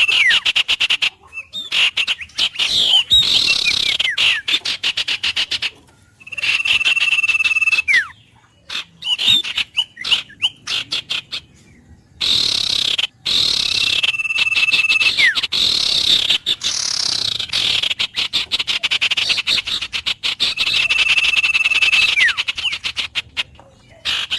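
Wild birds calling: a held, steady whistle about a second and a half long that ends in a quick falling slide, repeated four times, over near-continuous fast rattling trills with a few short pauses.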